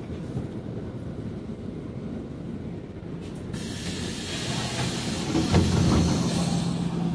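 Scania city bus standing with its engine running, a steady low rumble inside the cabin. About halfway a hiss of compressed air from the bus's pneumatic system sets in and grows louder, with a thump shortly before the end.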